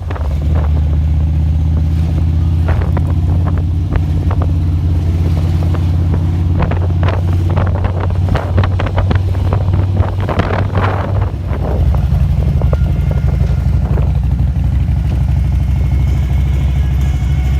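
Motorcycle engines running loud, a steady deep rumble, with sharp crackles through the middle.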